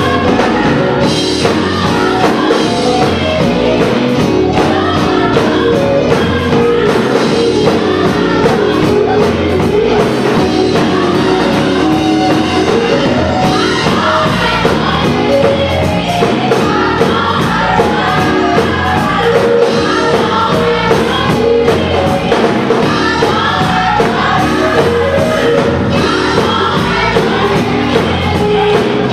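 Gospel choir singing with a live band of drums and other instruments, played loud.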